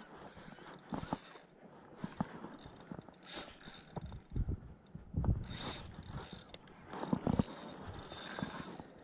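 Spinning reel cranked hard against a large fish on the line, a bull red drum: the reel's gears and drag clicking and whirring in uneven bursts, with a few low thumps from the rod being handled about halfway through.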